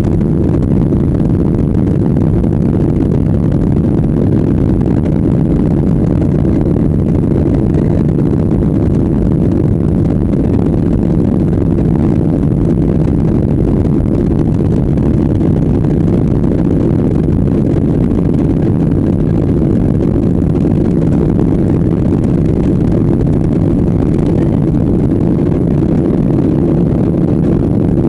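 Steady low rumble of an airliner taxiing, its jet engines running, heard from inside the passenger cabin.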